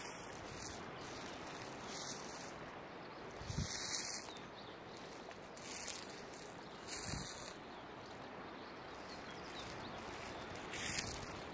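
Steady outdoor background noise, with short hissy rustles every second or two and two soft low thumps, one about three and a half seconds in and one about seven seconds in.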